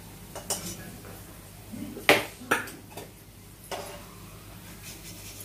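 Steel slotted ladle knocking and scraping against a steel kadai and plate while fried onions are lifted out of the oil: four sharp metallic knocks, the loudest about two seconds in.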